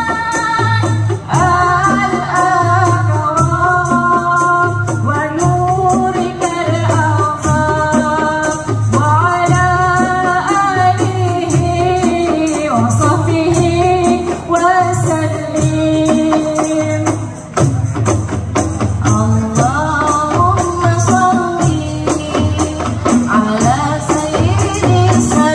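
Qasidah music: women singing in unison to a steady beat played on rebana frame drums, with small jingled tambourines shaking along.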